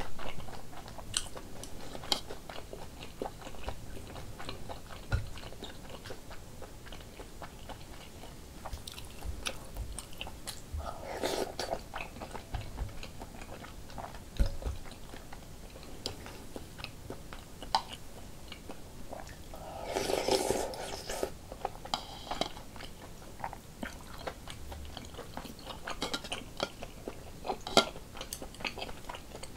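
Close-miked chewing and mouth sounds of someone eating rice-cake soup, with scattered short clicks and taps of chopsticks and dishes. Two longer, louder stretches of mouth noise come about 11 and 20 seconds in.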